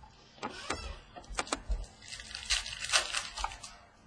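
Trading cards being handled on a table as a pack is flipped through: a few sharp clicks and snaps, then about two seconds of cards sliding and flicking against one another.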